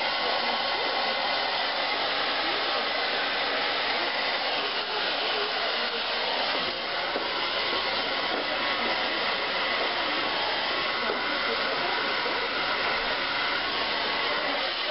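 Handheld hair dryer running steadily, a continuous rush of air with a faint steady whine, blowing close onto hair being worked with a round brush.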